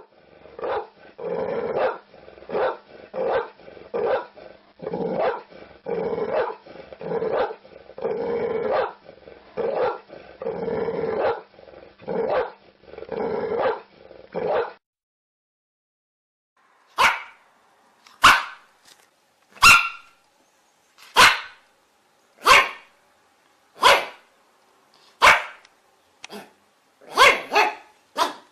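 Dogs barking: a dense run of repeated barks for about the first fifteen seconds, then a short pause, then single sharp barks about every second and a half.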